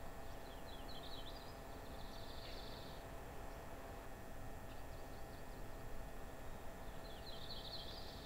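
A small songbird singing twice: each high phrase is a quick run of notes that runs into a short buzzy trill, over a steady faint hiss of outdoor ambience.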